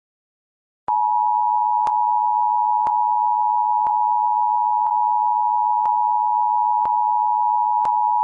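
Emergency Alert System attention signal: a steady two-tone alarm that starts abruptly about a second in, with a click about once a second.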